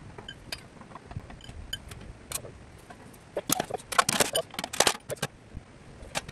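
Steel parts of a cylinder wood stove clinking and clattering as they are taken apart and packed into the stove body: scattered light clicks, then a quick run of sharp metallic clacks about three and a half to five seconds in.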